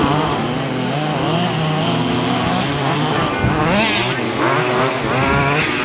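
Two-stroke petrol engines of several 1/5-scale HPI Baja RC buggies racing, each revving up and down in pitch, their whines overlapping.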